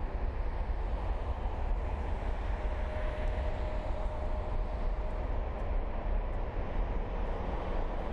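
Jet airliner engines running at the airport: a steady deep rumble, with a faint whine for a few seconds in the middle.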